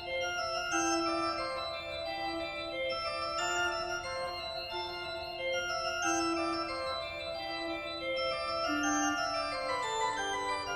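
Slow organ music: long held chords that shift step by step, with no beat.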